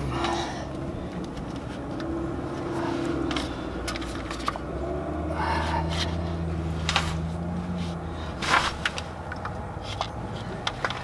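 Clutch pressure plate and disc being worked into place against the flywheel by hand: scattered metal clicks and knocks, the loudest about eight and a half seconds in. A low hum swells in the background through the middle.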